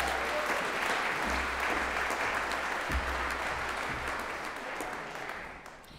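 Audience applause that slowly dies away toward the end.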